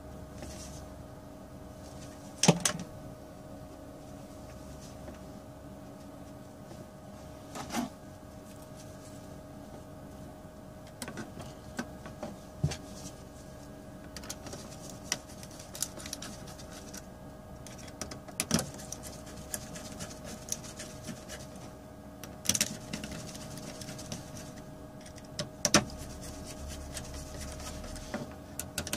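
Small tools and a metal laptop heatsink being handled on a motherboard: sharp clicks and light knocks every few seconds, then lighter, quicker ticks as screws are driven in with a small screwdriver. A steady hum runs underneath.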